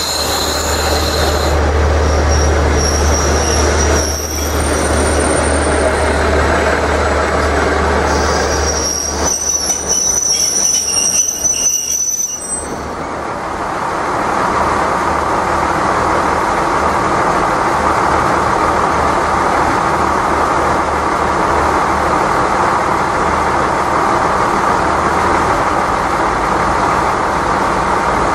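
Three-car KiHa 48/KiHa 40 diesel railcar train moving slowly through a station: a deep diesel rumble with thin, high-pitched metallic squeals from the running gear. After about twelve seconds the squeals stop and the train goes on with a steady rumble.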